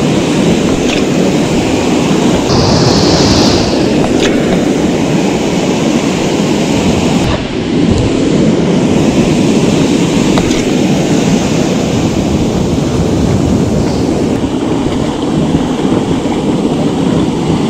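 Ocean surf breaking and washing up the beach, mixed with wind buffeting the microphone into a loud, steady rumble.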